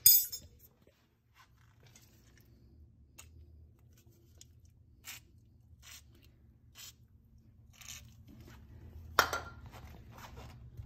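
Light handling of metal tools and loose wheel studs: a sharp metallic clink at the start, a few faint scattered clicks, and a louder metal knock with a brief ring about nine seconds in, over a low steady hum.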